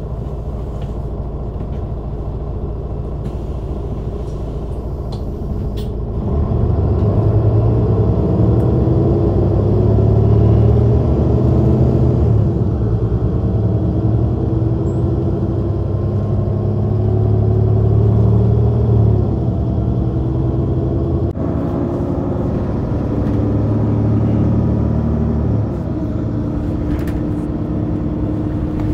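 Diesel engine of a Mercedes-Benz O530 Citaro city bus, heard from directly above it. It idles steadily, then pulls away about six seconds in. The engine note climbs under load and falls back twice as the Voith automatic gearbox shifts up.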